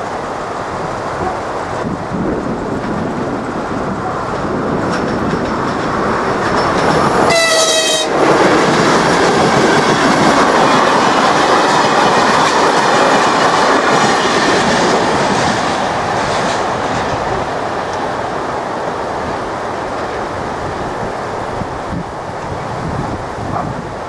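A train passing over a level crossing: a short horn blast about seven seconds in, then the loud rush and rumble of the train going by, easing off gradually over the last several seconds.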